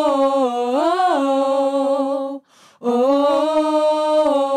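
A cappella gospel trio singing long held "oh" notes with no instruments: two sustained phrases with a short break for breath about halfway through, the pitch rising briefly about a second in.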